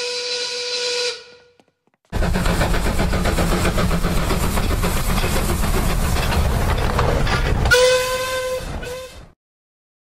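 A steam whistle blows at one steady pitch and fades out about a second in. After a short gap a steam locomotive runs close by with loud, noisy running sound. Near the end it sounds its whistle at the same pitch for about a second and a half.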